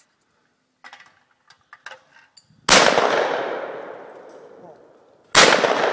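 Two shotgun shots at clay targets, about two and a half seconds apart, each followed by a long rolling echo that dies away over a couple of seconds.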